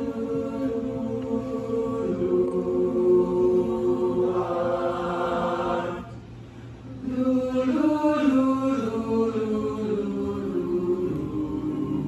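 An a cappella vocal group singing held close-harmony chords that swell, break off briefly about six seconds in, then return with shifting chords.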